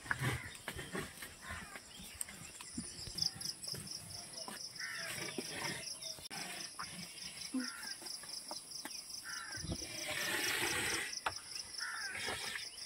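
Insects trilling in a high, fast, even pulse that sets in about three seconds in, over scattered scuffs and knocks of movement, with a louder rustle for about a second near the end.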